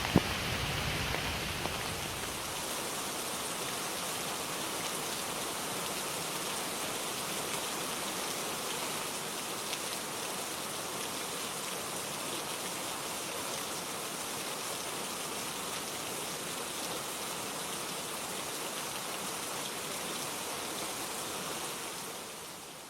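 Steady rain falling, an even hiss of many drops. There is one sharp tap just after it begins, and the rain drops a little in level near the end.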